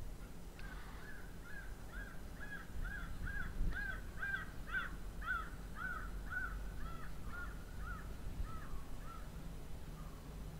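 A crow cawing in a fast, steady series, about two caws a second, growing fainter and stopping near the end.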